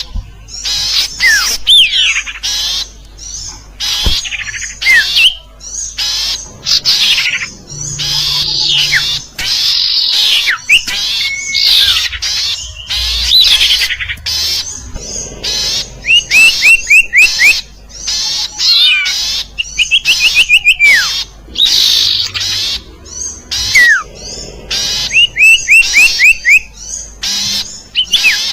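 Bird-lure recording of small birds calling: dense high chirps, quick runs of short repeated notes and falling whistles, in choppy, edited-together phrases.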